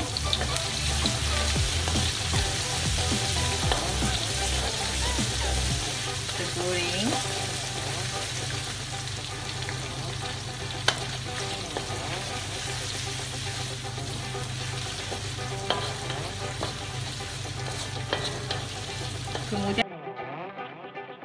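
Sliced garlic and ginger sizzling in hot oil in a wok, with a few sharp clicks from a wooden spatula stirring. Near the end the sizzling cuts off suddenly and music takes over.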